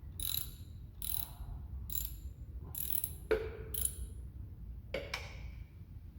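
Socket ratchet wrench being worked in short strokes, a burst of ratcheting clicks about once a second.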